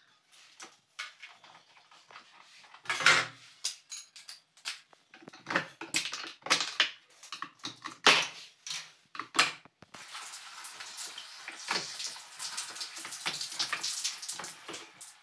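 Plastic filter cartridges and push-fit fittings of an LG RO water purifier handled by hand: a string of sharp clicks and knocks, then a steady hiss with more clicks from about ten seconds in.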